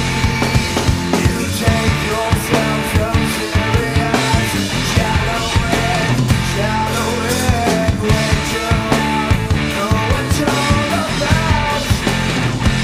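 Studio recording of a rock song played by a guitar, bass and drums band, with a steady, busy drum beat.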